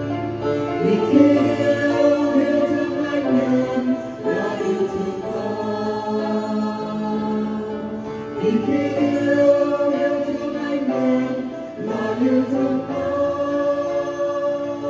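Mixed choir of women's and men's voices singing a Vietnamese hymn in harmony, in long held phrases, with new phrases entering about 4, 8 and 12 seconds in.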